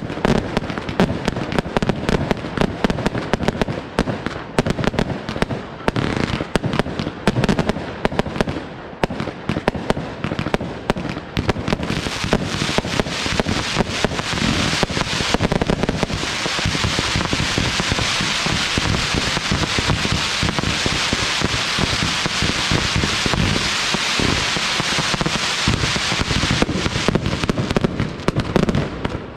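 Fireworks display: rapid volleys of shell bursts with deep booms and sharp reports, giving way about halfway through to a dense, continuous crackling, with booms returning near the end.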